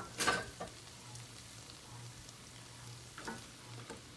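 Onion, bell pepper and garlic sizzling gently in meat juices in an enamelled cast-iron pot, over a low steady hum. A short utensil clatter near the start, and light knocks about three seconds in as sliced mushrooms are tipped into the pot from a bowl.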